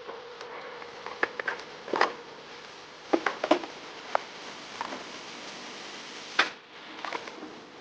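Irregular light clicks and knocks, as of small objects being handled and set down, over a steady hiss.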